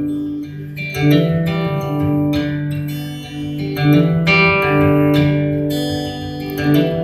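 Acoustic guitar playing chords in an instrumental gap between sung lines, with a new chord struck about every one to two seconds.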